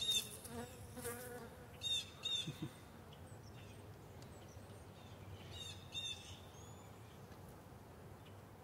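Honeybees buzzing steadily and faintly as a comb frame covered in bees is lifted out of an open hive. A bird chirps in short calls several times over it.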